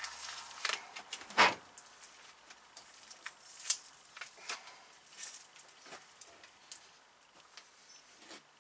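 Irregular scrapes and clicks of a chisel being worked under the greasy lead sheath of scrap copper cable, with the two loudest about one and a half and three and a half seconds in.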